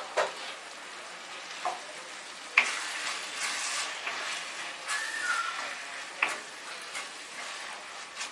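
A wooden spatula stirs onions, tomatoes, mint and coriander in an iron kadai. The mixture sizzles steadily, and the spatula knocks and scrapes against the pan several times, busiest in the middle.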